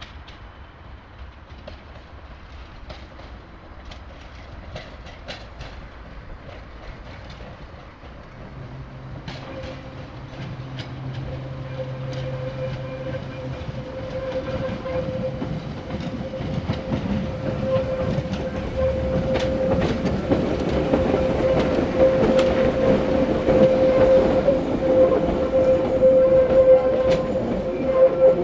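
Ex-1938 London Underground Class 483 electric train approaching and drawing past, growing steadily louder, its wheels clicking over rail joints and points. A steady whine sets in about a third of the way through and strengthens as the train comes close.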